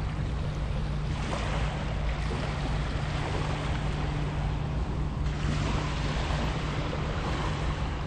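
Small waves washing onto a sandy shore, the wash swelling now and then, over a steady low rumble of wind on the microphone.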